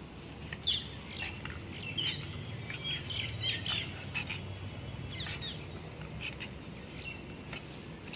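Small birds chirping in the background: a scatter of short, high, quick sweeping chirps throughout, over a faint low hum.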